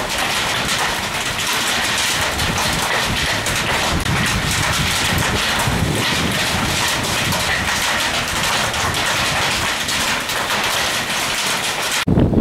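Thunderstorm wind and heavy rain: a steady rushing roar with a low rumble and a dense patter of small hits. Near the end it cuts abruptly to a louder, deeper rumble of wind buffeting the microphone.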